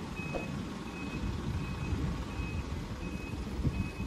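Reverse alarm of a stainless-steel tank truck beeping steadily as the truck backs up: short, high, single-pitched beeps about every 0.7 seconds over the low rumble of the truck.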